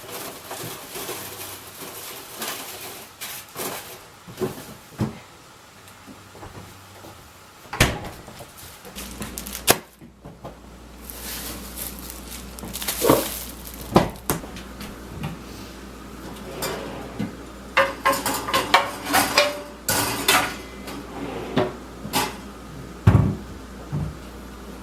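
Kitchen clatter: dishes, pans and cutlery knocking and cupboard doors opening and closing, a string of irregular clicks and knocks. A low steady hum comes on about ten seconds in.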